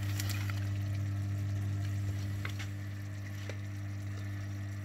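Hand lifting a sea urchin out of a plastic bag of water: faint splashing and crinkling of the bag, mostly in the first half second, with a few small clicks later, over a steady low hum.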